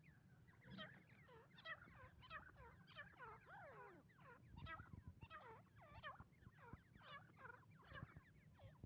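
Female francolin calling, a quick run of short notes that bend in pitch, about two a second, without a break.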